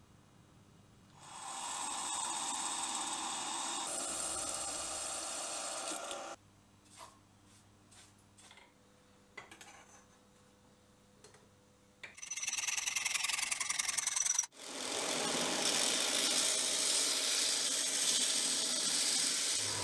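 Workshop metalworking: a drill press cutting steadily for about five seconds, then a quiet stretch with light scrapes and clicks from hand filing. Near the end a belt sander grinds steadily.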